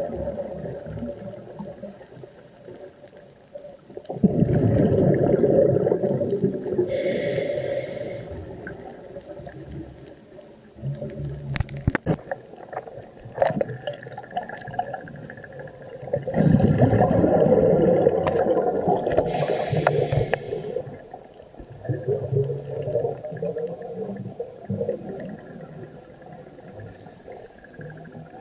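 Scuba diver's exhaled breaths through the regulator, heard underwater: two long bursts of bubbles about twelve seconds apart, with quieter bubbling and a few sharp clicks in between.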